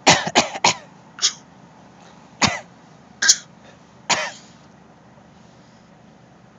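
Coughing: a quick run of three coughs, then four more single coughs spaced about a second apart, stopping about two-thirds of the way through.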